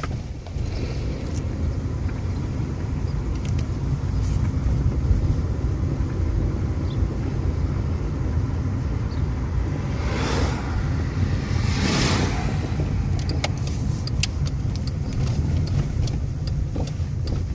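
Skoda Fabia driving, with a steady low road rumble and two passing swells of noise a little past halfway. In the last few seconds there is a run of sharp, irregular knocks from the suspension: a worn-out anti-roll bar link knocking.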